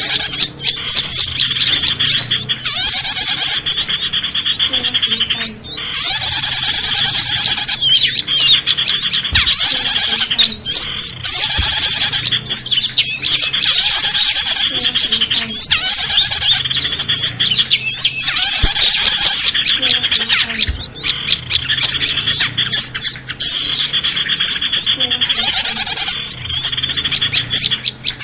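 A dense, loud chorus of many small birds chirping, twittering and trilling over one another without pause: a bird-luring (pikat) recording meant to draw in wild birds.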